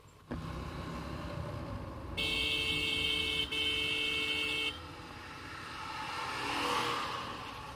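A vehicle horn sounds for about two and a half seconds, one steady blast broken by a brief gap halfway, over the steady noise of a motorcycle ride. Near the end, road noise swells and fades.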